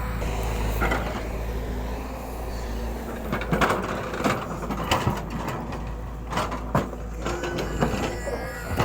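Volvo excavator's diesel engine running steadily while it cuts into the roadside, with a series of sharp knocks and clatters of the bucket striking rock and soil from about three seconds in.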